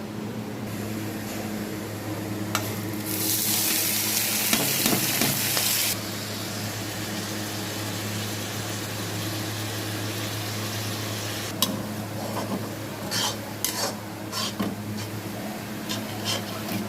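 Food sizzling in hot oil in a pan, loudest for about three seconds a few seconds in and stopping abruptly. It is followed by a spatula clinking and scraping against the pan, over a steady low hum.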